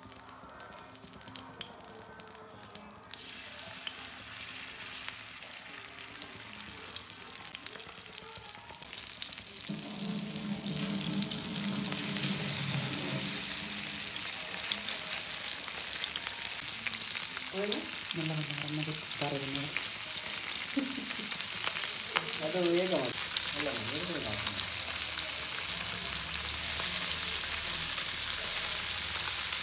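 Masala-coated fish frying in shallow oil on a tawa. The sizzle is quiet at first, builds up, and becomes loud and steady about twelve seconds in.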